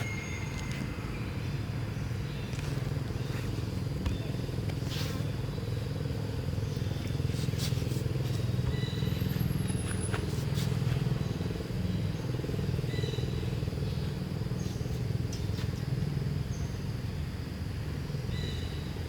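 A steady low motor drone, louder in the middle, with a few brief high chirps and scattered sharp clicks over it.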